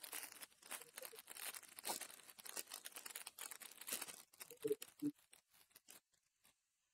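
Foil trading card pack wrapper being torn open and crinkled by hand: a quick, dense run of crackling rustles for about four seconds, thinning to a few light rustles and then going quiet.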